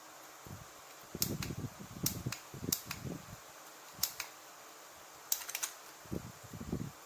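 Sharp plastic clicks, about six spread unevenly with a quick cluster near the end, and dull handling knocks in between, from a rechargeable portable fan being handled and its controls pressed.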